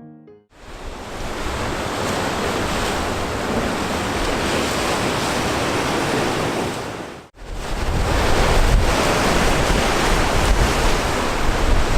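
Rough sea surging and breaking on a rocky shore in a strong gale, with wind buffeting the microphone. It breaks off suddenly a little past halfway and comes back with heavier low wind rumble.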